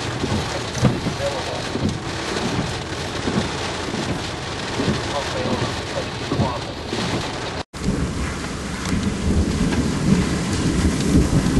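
Heavy thunderstorm rain pouring down, with low rumbling underneath. The audio cuts out for an instant about two-thirds through, after which the low rumble grows stronger.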